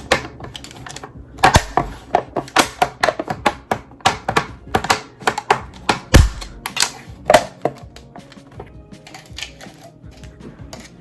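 Lens pieces snapping onto the rim of a Neewer ring light: a run of sharp, irregular clicks, dense for several seconds and then thinning out. Background music plays underneath.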